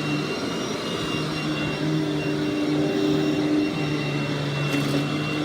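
Vacuum cleaner motor running steadily: a constant high whine over the rush of air.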